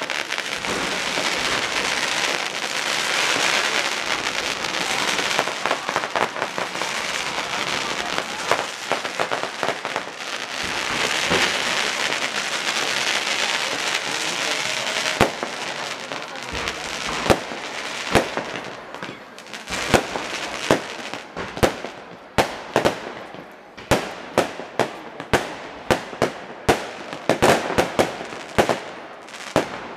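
Fireworks display: dense crackling and hissing for about the first half, then a run of sharp bangs that comes faster toward the end, about two a second.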